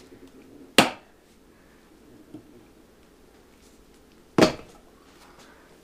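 Two sharp snaps about three and a half seconds apart as a tire spoon levers a knobby motorcycle tire's bead, held by zip ties, onto the rim.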